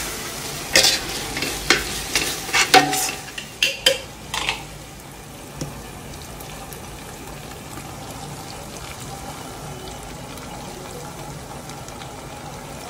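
Metal ladle scraping and knocking against a large steel cooking pot as ginger-garlic paste is stirred into frying onions and herbs. After about four and a half seconds the strokes stop, leaving a steady sizzle of the masala frying in oil.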